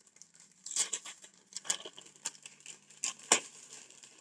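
Gift wrapping paper crinkling and tearing in a string of short, irregular rips as a present is unwrapped, the loudest about three seconds in.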